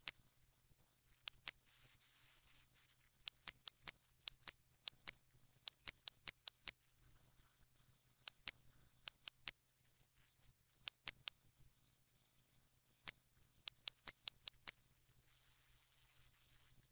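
Computer mouse clicking: about thirty sharp clicks in uneven runs, many as quick pairs like double-clicks, over a faint steady hum. A soft hiss lasts about a second near the end.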